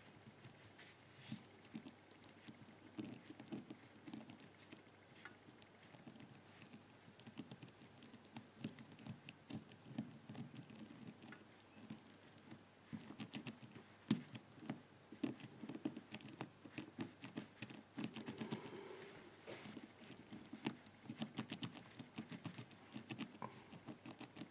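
4-wheel combination padlock being decoded by feel: the number wheels are turned and the lock is handled, giving a faint, irregular stream of small clicks and light rattles as each wheel is tried for play to find its opening position.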